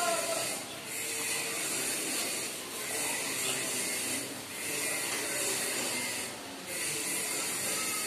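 A steady hiss that dips briefly about every two seconds.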